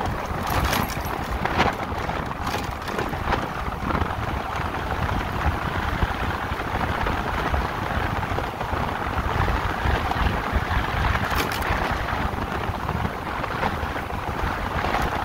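Steady wind rush buffeting the microphone with road noise from a motorcycle moving at speed, with a few short sharp knocks near the start and again past the middle.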